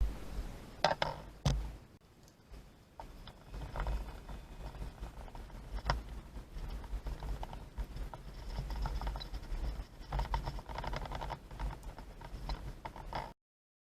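Scattered clicks, knocks and rustling handling noises over a low rumble, the sharpest knocks about a second in and about six seconds in, busier from about eight seconds on.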